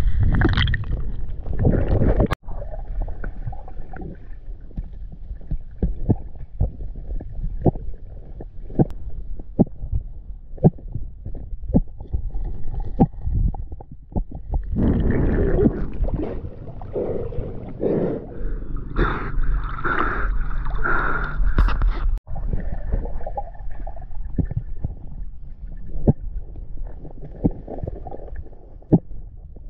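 Muffled underwater sound picked up by a diver's camera on a riverbed: a low rumble with many small clicks and knocks as hands handle stones and debris. About halfway through it grows louder and rougher for several seconds.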